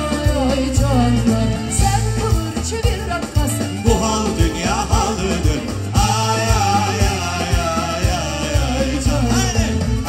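Live band playing a Turkish pop song, with a male lead singer over drums and bass and a steady beat.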